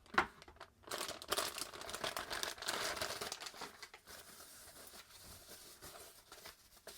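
Packaging being unwrapped by hand, crinkling and rustling in irregular bursts, with a sharp click just after the start; the handling fades to faint rustles about four seconds in.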